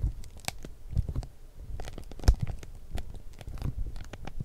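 Handling noise: an irregular run of knocks and low thumps mixed with light crinkling, the loudest thump a little over two seconds in.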